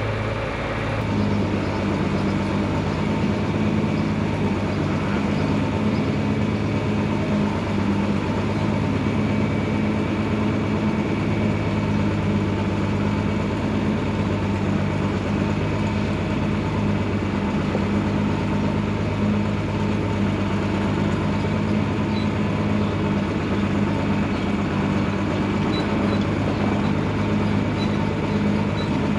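Heavy farm-machine engine running steadily at a constant speed, its note picking up slightly about a second in.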